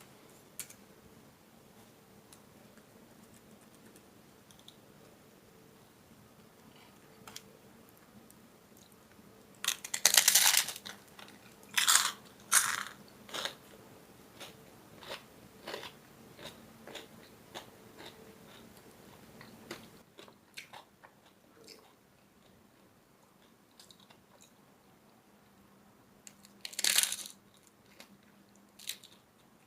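Crunchy food being bitten and chewed in close-up: several loud crunches about ten to thirteen seconds in and again near the end, with smaller crunches between, over a faint steady hum.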